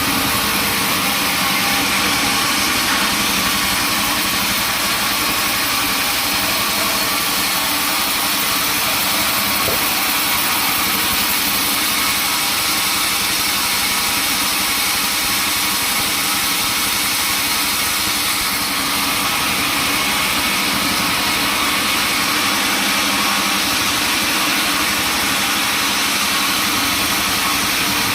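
Sawmill machinery running steadily: an engine-like drone with a strong hiss on top, holding at an even level.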